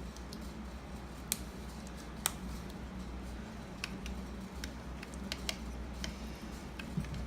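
Light, irregular clicks and taps of the Schlage KN150 electronic lock's parts being handled while its battery is fitted, over a steady low hum.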